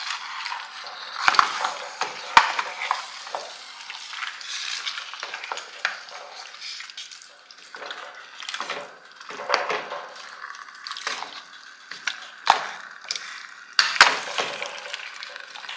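Food being stirred and scraped with a spoon in a sizzling pot, uneven scraping with a few sharp knocks.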